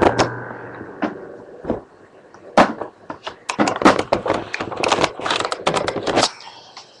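A loud knock with rustling at the start, then a rapid, uneven run of sharp clicks and taps from about two and a half seconds in until about six seconds in, like typing or small objects being handled.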